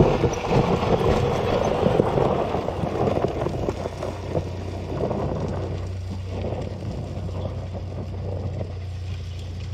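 Off-road bike engines running on a hillside: a rougher, louder spell over the first few seconds, then easing to a steady low hum.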